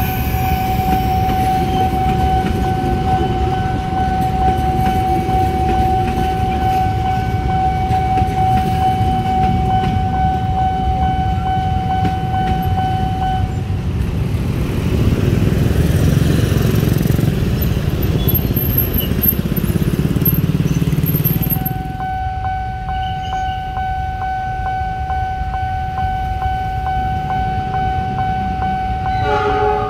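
Passenger train coaches rumbling and clattering over the rails at a level crossing, while the crossing's warning alarm sounds as a steady high tone. The tone stops about two-thirds of the way through as the last coaches pass, and the rumble swells for several seconds. Then, more quietly, the warning tone sounds again while a CC206 diesel locomotive approaches slowly.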